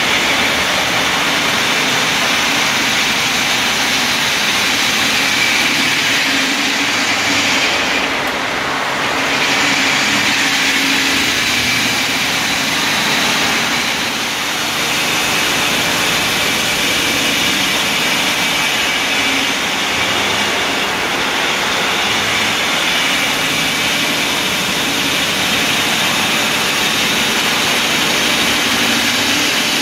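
Water-cooled diamond blade of a stone bridge saw cutting through a granite slab: a loud, steady grinding noise over a low motor hum, with the high part briefly dulling about eight seconds in.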